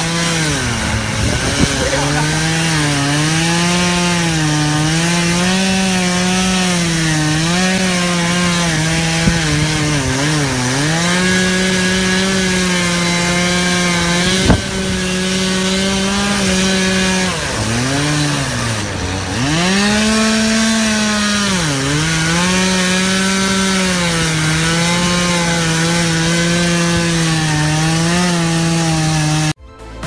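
Chainsaw running hard as it cuts through a fallen tree's branches, its engine note repeatedly sagging under load and picking back up. It stops abruptly near the end.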